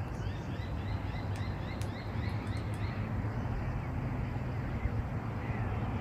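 Crimson rosella chattering in a quick run of short rising chirps, about four a second, which stops about halfway through, with one faint note near the end. A steady low rumble runs underneath.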